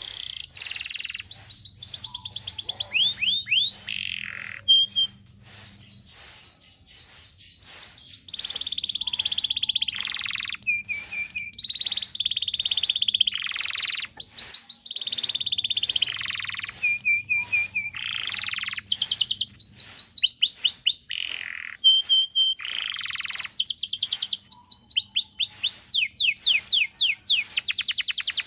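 Canary singing a long song of fast trills and rolls, phrases of rapidly repeated notes broken by rising whistled sweeps, with a short quieter lull about six seconds in.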